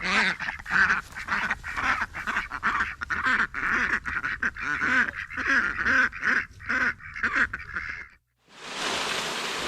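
Domestic ducks quacking in a rapid, continuous chorus of loud calls. The quacking cuts off about eight seconds in, and after a brief silence a steady rushing noise begins.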